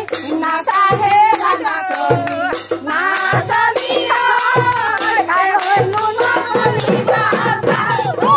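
Women singing a folk song together over a drum struck about once a second, with hand clapping.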